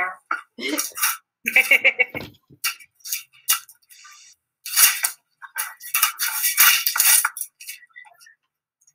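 Wrapping paper rustling and crinkling in short, irregular bursts, busiest about five to seven seconds in.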